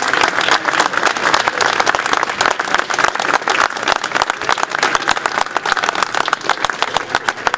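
Crowd applauding, many hands clapping, thinning out near the end.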